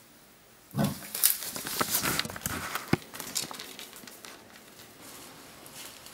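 Wild boars rustling and trampling through dry leaves and undergrowth: a sudden burst of crackling and rustling with sharp snaps about a second in, then fading after a couple of seconds.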